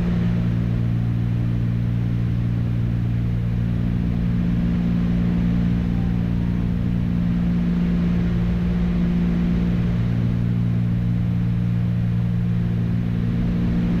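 Twin piston engines and propellers of a Cessna 310 droning steadily in flight, heard inside the cabin, a constant low hum with no change in pitch.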